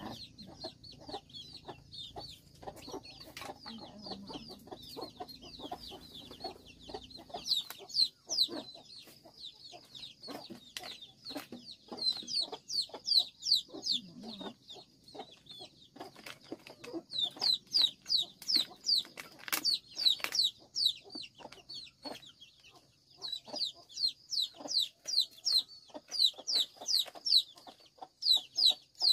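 Chickens cheeping: quick high calls that fall in pitch, several a second, coming in spells of a few seconds, over light clicking and rustling.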